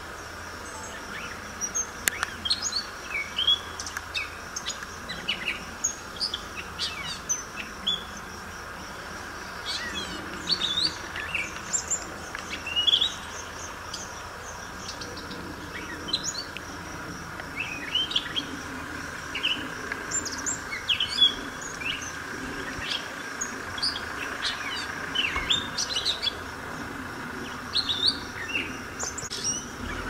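Small birds chirping, many short, sharp notes, mostly dropping in pitch, coming thick and fast from several birds at once over a steady background hum.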